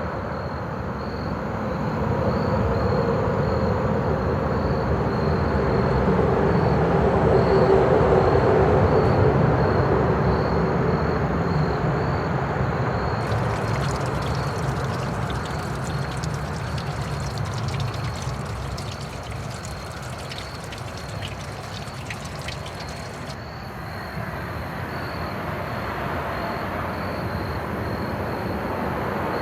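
Outdoor field recording: a steady rushing noise that slowly swells and then fades, with insects trilling in an even, rapid pulse throughout.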